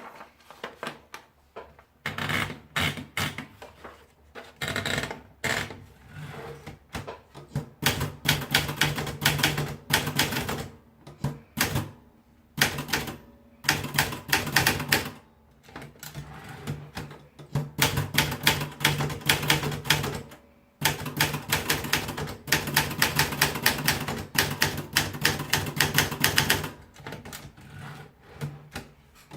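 Präsident Super Deluxe typewriter being typed on: runs of rapid keystroke clicks broken by short pauses, with a low steady hum under the typing.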